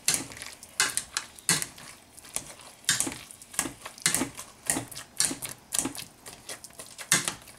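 Wire potato masher pushed down through boiled potatoes, knocking against the bottom of the pot in an irregular run of sharp clicks and knocks, about two a second.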